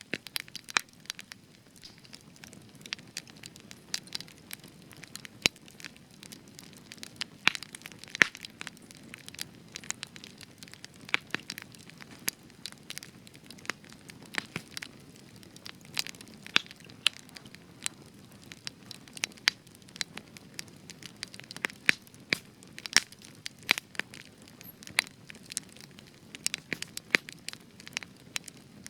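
Spruce wood burning in a campfire, crackling and popping with frequent sharp snaps at irregular intervals over a soft low rush of flame.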